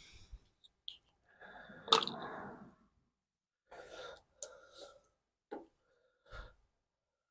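A few short clicks and knocks spread over several seconds, with one louder, sharp burst of noise about two seconds in.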